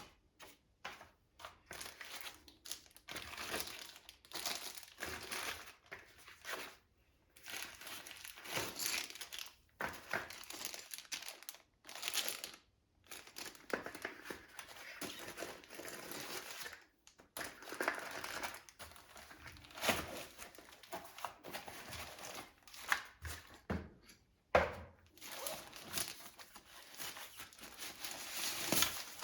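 Packaging being handled and unwrapped: irregular crinkling and rustling with a few tearing sounds, stopping and starting in short bursts with brief pauses, as from unwrapping a new keyboard.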